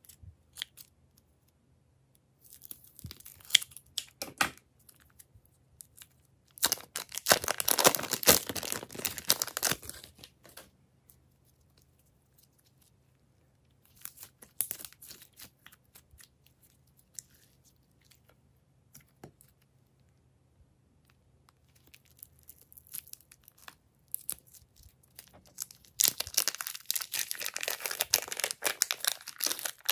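Plastic piping bags of slime crinkling and tearing as they are cut open and the slime is squeezed and peeled out of them. The crinkling comes in several bursts with quiet gaps between, then runs densely for the last few seconds.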